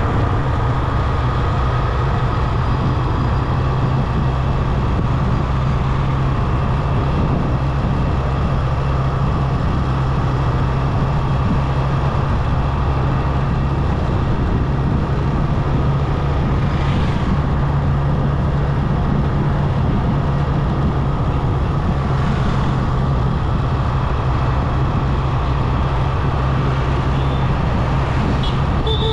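Motorcycle engine running at a steady cruising speed, an even drone that holds one pitch, over road and wind noise. Two faint, brief hisses come through around the middle.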